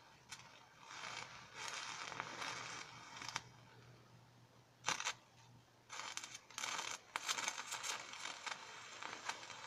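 Stick-welding arc from an electrode fed straight from a 24-volt solar panel string, crackling and sputtering in bursts: it catches, dies out for a second or so around the middle and catches again. The owner puts the weak, unsteady arc down to too little voltage from the panels.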